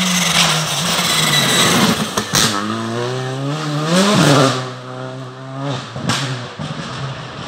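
Rally car accelerating hard past at full throttle, its engine pitch climbing and cutting back sharply at gear changes about two and a half and four seconds in, with several sharp cracks.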